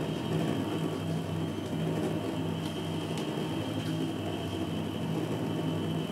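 A steady low hum made of a few held low tones, with a faint thin high whine above it, unchanging throughout, and a few faint ticks.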